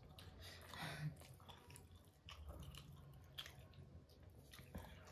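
Faint chewing of a steamed momo dumpling, with a few small mouth clicks.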